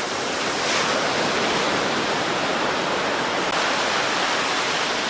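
Steady rush of surf breaking on a beach. It swells slightly just under a second in, then holds.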